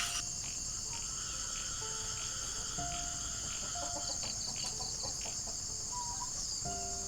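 Steady high-pitched chorus of insects, with short bird chirps scattered through it, including a quick run of about five chirps about four seconds in.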